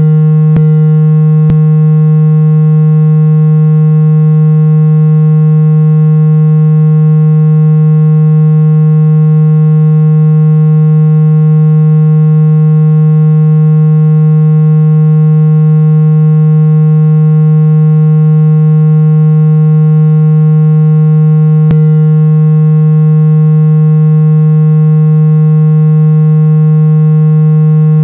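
Steady electronic hum: a single unchanging low tone with a buzzy row of overtones, offered as a therapy sound to unblock the ears. A few faint clicks come through about a second in and again near the end.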